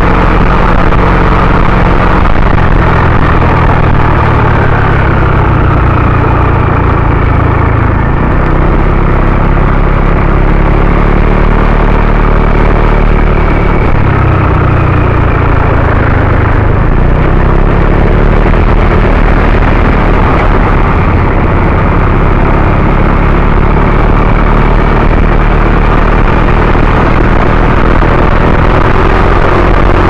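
Engine of a moving vehicle running steadily under a heavy rush of wind and road noise on an on-board camera's microphone. The engine note shifts in steps a few times.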